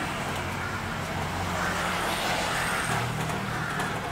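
Road traffic noise: motor vehicle engines running steadily with a low hum.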